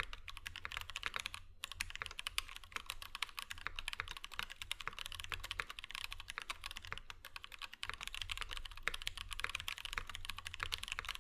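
Fast, continuous typing on a PH60 mechanical keyboard with Durock T1 tactile switches, lubed with 203g0, on a POM plate. There is a brief pause about a second and a half in.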